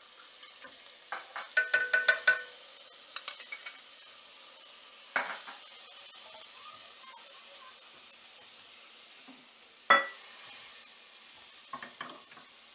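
Butter sizzling steadily in two small enamel saucepans while silicone spatulas stir and scrape. Clinks and knocks of utensils against the pans come through, a cluster of them about two seconds in and the loudest, a sharp knock with a brief ring, about ten seconds in.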